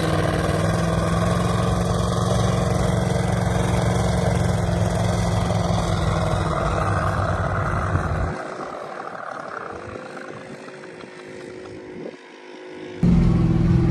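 Old pickup truck's engine running hard at steady high revs while it climbs a sand dune. About eight seconds in it drops away to a much quieter sound, and near the end a loud engine sound cuts back in abruptly.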